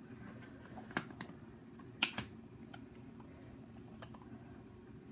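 A few sharp plastic clicks and knocks from the internal parts of an opened-up Nerf Hyperfire blaster being handled and fitted together. The loudest is about two seconds in.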